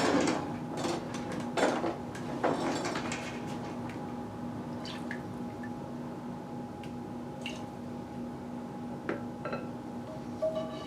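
Utensil clinking and scraping in a frying pan a few times in the first three seconds, then a steady low hum with a few faint clicks.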